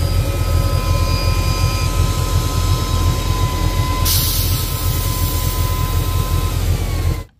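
VEVOR 4500 PSI 12-volt portable PCP compressor running, its pump and cooling fans making a steady pulsing drone with a thin whine. About four seconds in there is a short hiss of released air as the fill fitting is worked, and the whole sound stops abruptly near the end.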